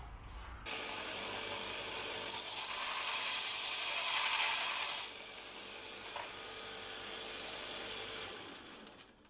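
A woodworking power tool runs with a steady hum and a hiss of cutting or rubbing on wood. The hiss swells for a couple of seconds in the middle, eases off, and fades out near the end.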